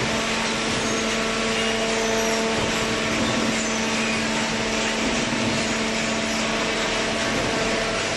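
Automatic hydraulic cardboard baler running: a steady machine hum with a constant low tone over an even whirring noise.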